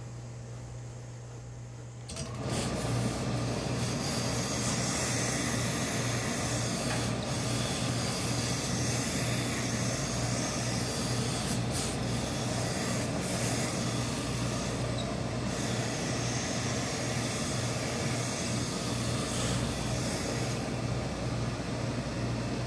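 Tailor's steam pressing equipment comes on about two seconds in: a steady hiss of steam over a low hum, which then runs on unbroken while a suit-trouser leg is pressed with a hose-fed industrial steam iron.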